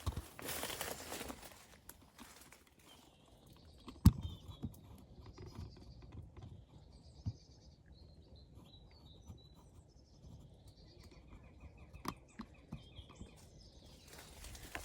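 Small birds singing and twittering, with rustling of brush at the start. A sharp click about four seconds in is the loudest sound, and a second one comes about twelve seconds in.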